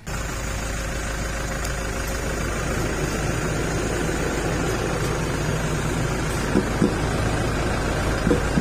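Vehicle engine idling with a steady, even running noise, and a few short knocks near the end.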